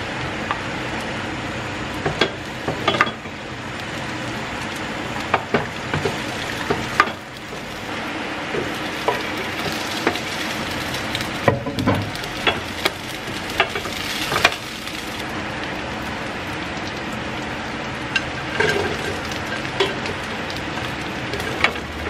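Onion and green bell pepper sizzling in hot oil in a nonstick frying pan, stirred with a wooden spatula. The spatula scrapes and knocks against the pan now and then, over the steady sizzle.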